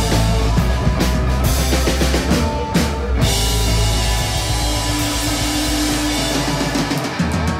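Live indie rock band playing: a drum kit with electric guitars, bass and bowed viola. About three seconds in the drum hits give way to a held, ringing chord with one long sustained note, and the deep bass drops out near the end.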